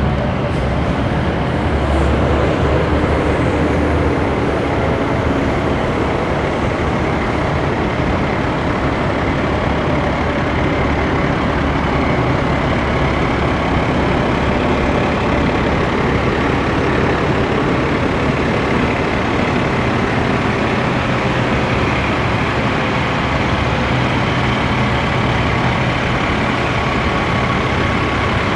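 Heavy truck's Cat C13 diesel engine idling steadily.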